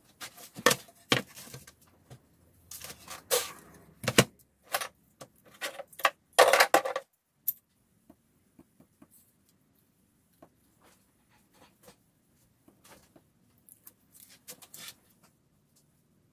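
Clicks, knocks and metal clatter of tools and parts being handled on a workbench, with a dense rasping burst about six and a half seconds in. After that only a few faint taps.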